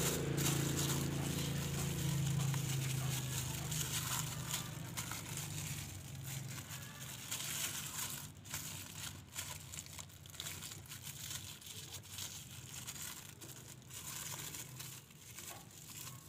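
Thin plastic bag crinkling and rustling as hands wrap it around an engine's air-intake hose and sensor and twist it tight. A low hum is heard at first and fades away over the first few seconds.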